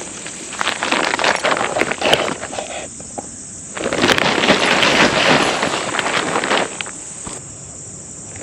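A steady high insect chirring, likely crickets, runs throughout. Over it come loud rustling, crackling stretches made of many small clicks, which die down twice before resuming.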